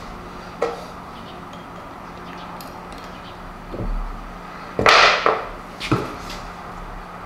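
A steel Allen wrench clinking and scraping as it is worked into a screw's socket in the cast-iron body of a vise, with a few light knocks and a louder rattling scrape about five seconds in. A first sharp knock comes at the very end.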